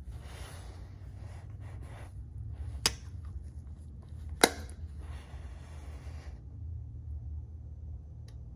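Hands handling a soft napa leather handbag: the leather rustles, and two sharp clicks about a second and a half apart stand out, with a steady low hum underneath.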